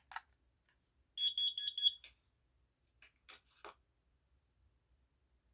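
Kidde KN-COB-LP2 carbon monoxide alarm being tested: a quick run of about five short, high-pitched beeps about a second in, followed by a few faint clicks.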